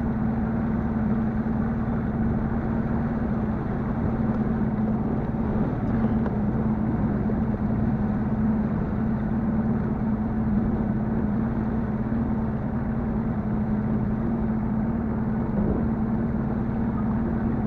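Outboard motor running steadily as a fishing boat cruises across a lake: an even drone that holds one pitch throughout.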